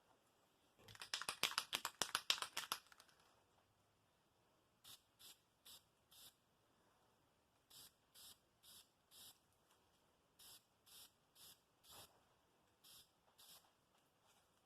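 An aerosol spray-paint can being shaken, its mixing ball rattling fast for about two seconds. Then short hissing spray bursts follow in quick groups of three or four.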